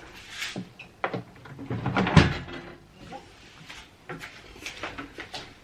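Kitchen handling sounds: a run of knocks and clicks as things are picked up and set down and cupboards or drawers are worked, the loudest knock about two seconds in.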